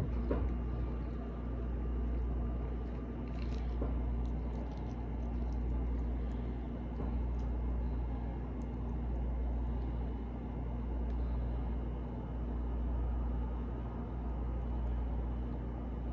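Steady low mechanical hum that swells and fades gently every second or so, with a few faint small clicks about three to five seconds in.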